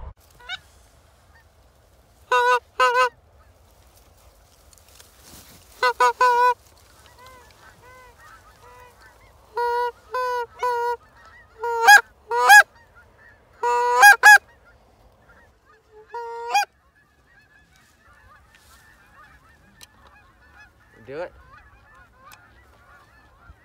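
Geese honking: loud, close honks in short groups of two to four every few seconds, some breaking sharply upward in pitch, with fainter honking in between.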